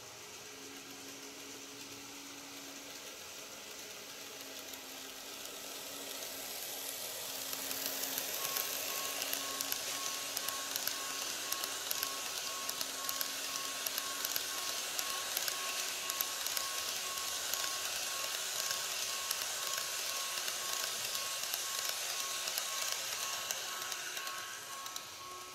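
Model train, an EF81 locomotive hauling blue 14-series coaches, running past on sectional track: its rolling noise builds about five seconds in, holds with rapid clicking of wheels over the rail joints, and fades near the end as the train leaves.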